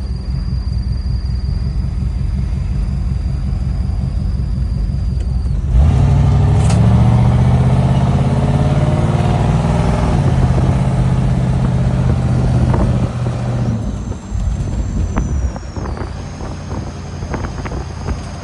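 1967 Ford Thunderbird's V8 heard from on board while driving. About six seconds in the engine note climbs as the car accelerates, and it eases back off about ten seconds in. A thin high whine sits above it at the start and again near the end, with a scatter of light clicks over the last few seconds.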